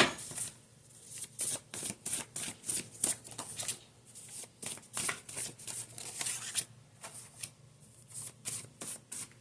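Tarot cards being shuffled by hand: a sharp tap at the start, then a run of quick, irregular crisp card rustles and flicks.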